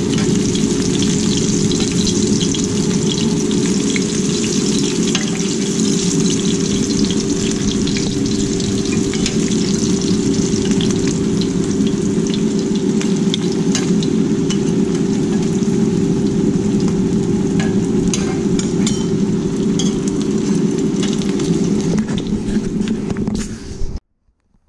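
Cornmeal-coated shark pieces shallow-frying in hot oil in a stainless steel skillet, sizzling steadily with scattered sharp pops and crackles. A steady hum runs underneath. The sound cuts off suddenly near the end.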